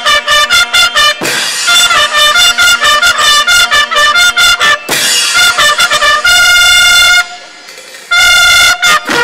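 Youth marching band's brass playing a quick passage of short notes, then two long held chords about a second apart near the end.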